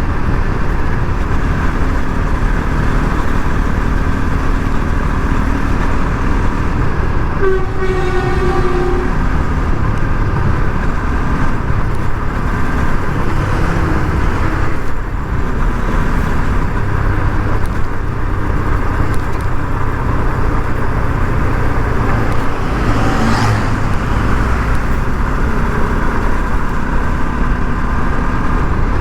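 Steady riding noise from a Bajaj Pulsar RS 200's single-cylinder engine and the road, heard from on the bike. A vehicle horn honks once, for about a second and a half, roughly eight seconds in.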